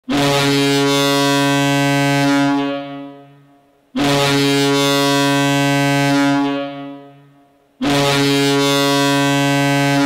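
Arena goal horn of the Albany FireWolves lacrosse club sounding three long, steady blasts. Each is held about two and a half seconds and then trails away, and the third is still sounding at the end.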